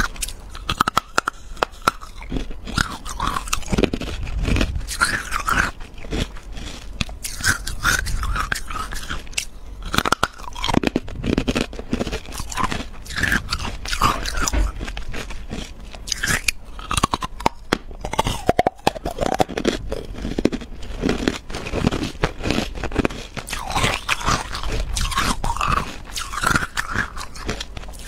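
Carbonated ice being bitten and chewed right at a close microphone: a steady run of crunches.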